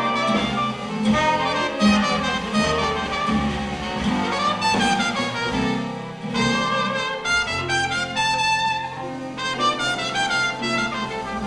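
A live Dixieland jazz band playing, a trumpet out front with trombone, drums and string bass behind it.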